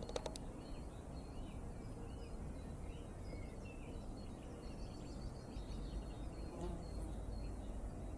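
Outdoor ambience of small birds chirping and twittering, most busily around the middle, over a steady low rumble.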